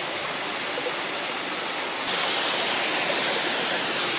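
Waterfall rushing steadily, suddenly louder and brighter about two seconds in.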